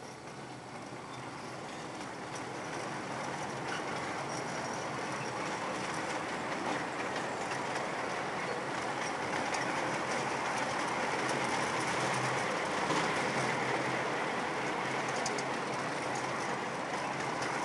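Miniature train's wheels rolling on the rails, a steady rumble with faint clicking, heard from a rear passenger car. It grows louder over the first few seconds, then holds steady.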